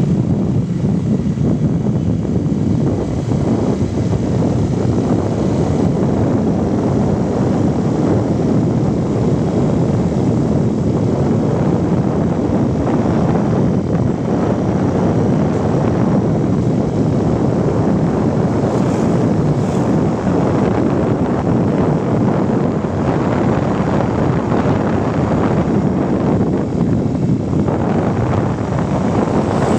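Steady, loud wind rumble buffeting the microphone, with a vehicle running under it.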